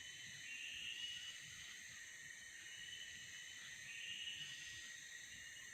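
Faint chorus of forest insects: steady high-pitched trilling at several pitches, with short wavering calls about half a second in and again about four seconds in.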